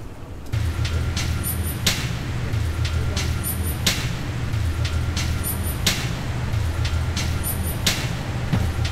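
A steady low electric hum starts about half a second in, with a sharp click about once a second; every other click is louder.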